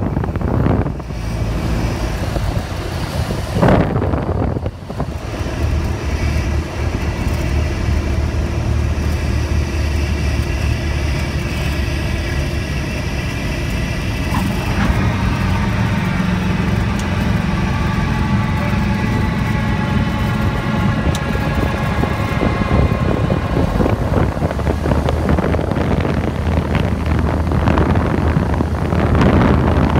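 Cessna 172 Skyhawk's piston engine and propeller running at low power, heard from inside the cockpit with wind noise, through the last of the approach and the landing. About halfway through the aircraft is on the runway and the sound changes, with higher steady tones joining as it rolls out.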